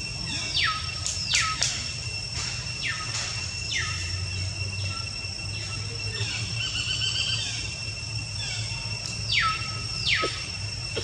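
Repeated high-pitched animal calls, each sliding quickly down in pitch, mostly in pairs: about four near the start and two more near the end. Under them runs a steady high-pitched drone and a low hum.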